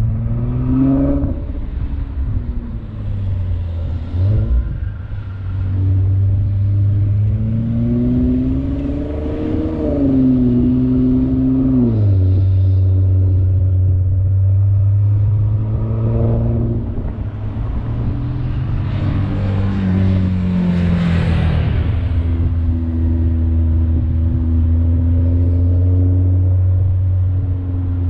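Car engine and exhaust driven through the gears on a winding mountain road. The engine note rises under acceleration, drops sharply at a shift about twelve seconds in and eases off again later, over a steady low drone. About twenty seconds in, a brief louder rushing noise swells and fades.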